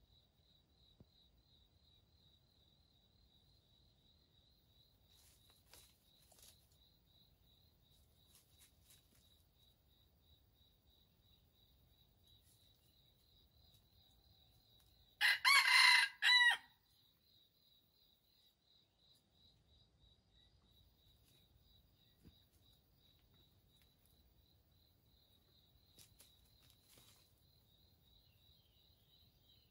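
A red junglefowl rooster crows once about halfway through: a short crow of about a second and a half with a brief break near its end. A faint, steady pulsing insect trill runs underneath.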